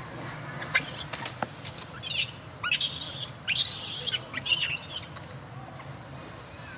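A macaque infant squealing: a run of about five shrill, high-pitched cries that sweep up and down in pitch, bunched over about four seconds, as a young macaque pulls at it while it clings to its mother.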